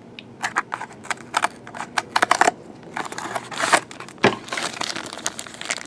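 Hands opening a cardboard trading-card pack and handling the plastic-wrapped card inside: a run of sharp crinkling and crackling of plastic and card stock, with one louder snap about four seconds in.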